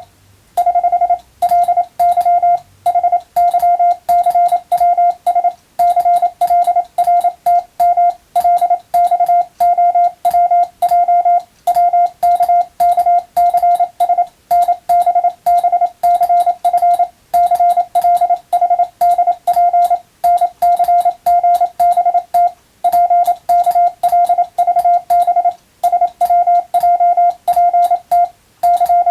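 Hand-keyed Morse code (CW): a steady mid-pitched tone switched into a fast stream of dots and dashes, sending English-language practice telegram text, with short breaks between words. A faint click marks each keying of the tone.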